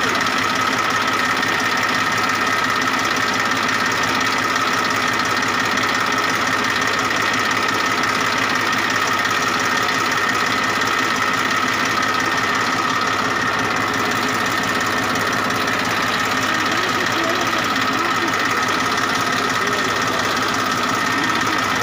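Massey Ferguson 1035 DI tractor's three-cylinder diesel engine idling steadily, with an even, unchanging running sound.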